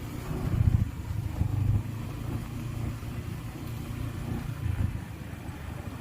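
A motor vehicle's engine running with a low rumble, swelling louder twice in the first two seconds.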